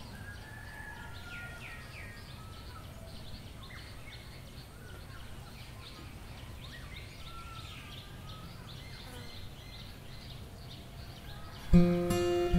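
Quiet room ambience with a steady low background and faint scattered bird chirps and short whistled calls. About three-quarters of a second before the end, acoustic guitar music comes in suddenly.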